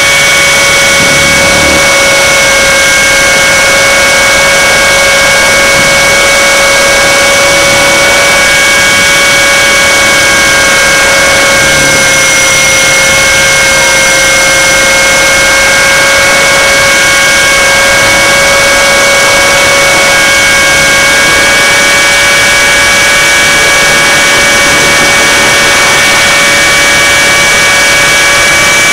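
Align T-Rex 600 RC helicopter in flight, heard from a camera mounted on the machine: a loud, steady high-pitched whine from its drive over the rushing noise of the spinning rotor.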